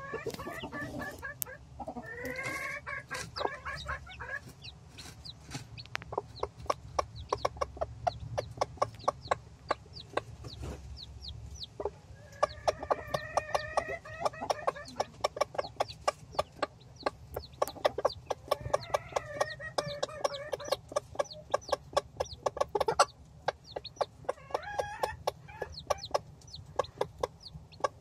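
One-day-old Silkie chicks peeping rapidly and constantly, while their mother hen clucks to them in several runs of low, repeated clucks. A single sharp click stands out about two-thirds of the way through.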